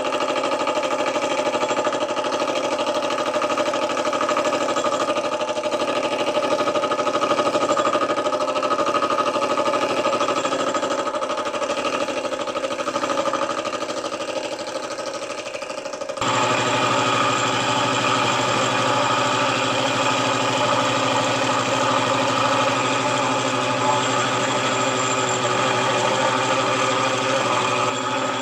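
Milling machine running steadily with a gear cutter taking a half-depth cut through a gear blank. About sixteen seconds in, the sound switches abruptly to a different steady hum with a deeper low note.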